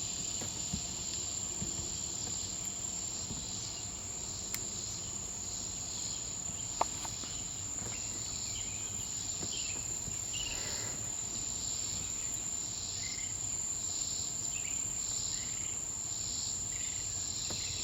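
Swamp cicada calling, a buzzing drone that pulses in a steady rhythm, over a continuous high-pitched insect trill.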